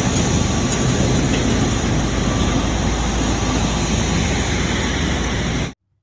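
Heavy tanker trucks driving on a road: a steady engine and road rumble that cuts off abruptly near the end.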